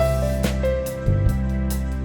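Background music: piano or keyboard melody over a steady beat.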